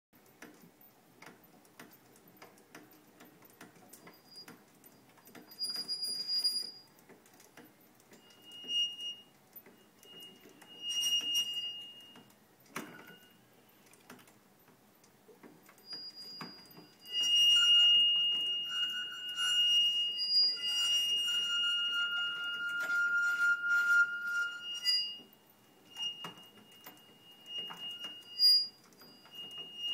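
Metal rod-and-plate skeleton of a mechanical doll: scattered light clicks with high, steady-pitched squealing that comes and goes, loudest and longest from a little past the middle until about 25 s.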